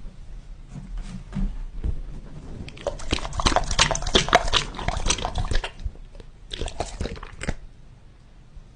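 Animal mouth noises: a dense run of quick, wet clicks and smacks lasting about three seconds, then a shorter spell of about a second.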